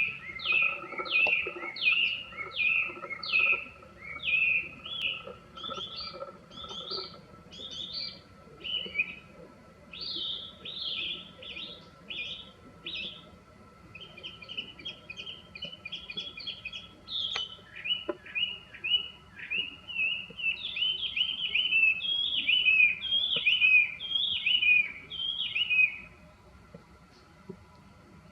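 Chinese hwamei singing loudly: a long run of clear whistled phrases, each built of a note repeated several times and slurring downward, with the phrase changing every few seconds. The song trails off near the end.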